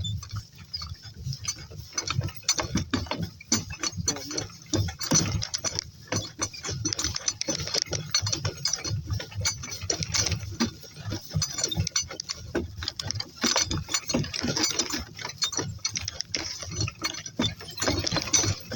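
A cart rattling and clattering as it rolls over rough farm ground, a dense, irregular run of clicks and knocks.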